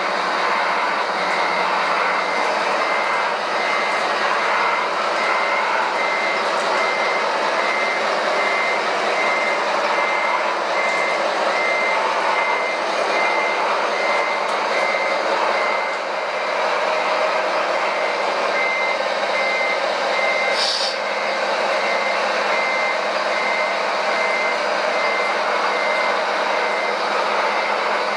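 Reversing beeper on a radio-controlled construction vehicle beeping steadily at one pitch, a little over once a second, over the steady running noise of the models' motors. A single short click sounds about two-thirds of the way through.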